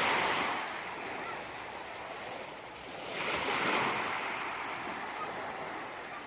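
Ocean surf breaking and washing up the beach, swelling at the start and again about three seconds in.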